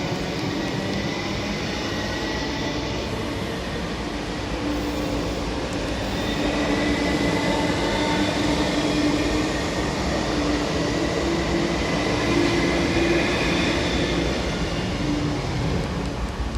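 MTR SP1900 electric train running on the East Rail Line: a steady rumble with level humming tones, growing somewhat louder about six seconds in.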